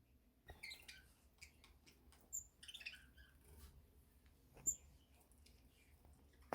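Faint budgerigar chirps and twitters scattered through, with two short, sharp high peeps, one a little over two seconds in and one near five seconds, along with light clicks.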